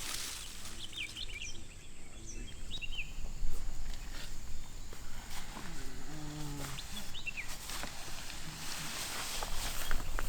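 Wild animal calls in the forest: short, high chirping calls in the first few seconds and again around seven seconds in, with a lower pitched call in between, over a steady background hiss of forest noise.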